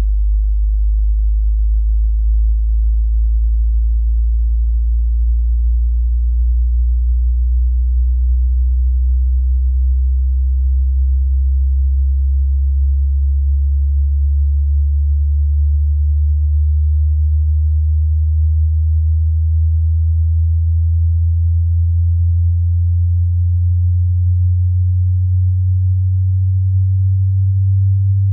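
A pure sine test tone of a hearing-test frequency sweep, very low in pitch and rising slowly and evenly, from a deep bass of about 60 Hz to about 100 Hz.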